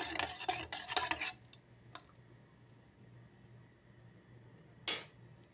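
Metal spoon stirring and scraping against a stainless steel pot of liquid, a quick run of clicks for about a second, then quiet. A single sharp knock near the end.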